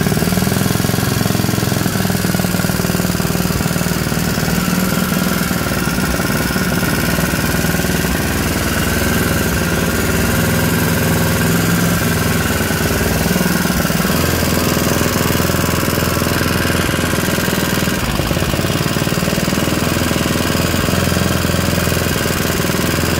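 Modified Honda GX200 single-cylinder engine on a Tillotson TCT carburetor running steadily just after starting, warming up during its first-run tuning. Its note shifts slightly about fourteen seconds in.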